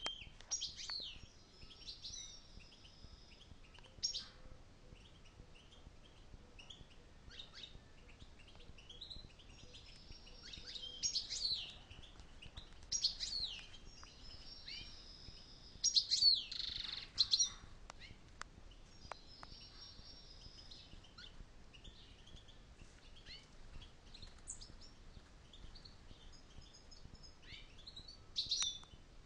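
European goldfinches calling and twittering: scattered bursts of high, quick chirps with short pauses between, loudest a little past halfway.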